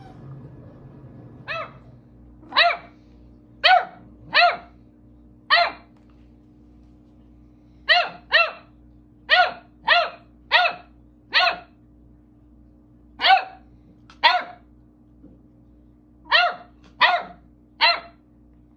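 Beagle puppy barking: about sixteen short, high barks in uneven runs, beginning about a second and a half in.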